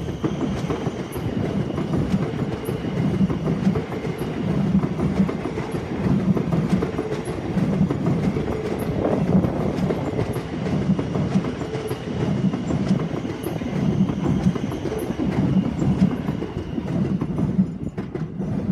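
Electric multiple-unit passenger train running past under the overhead wires, a steady rumble of wheels on rail with a low beat repeating about once a second. The noise drops away near the end as the last carriage passes.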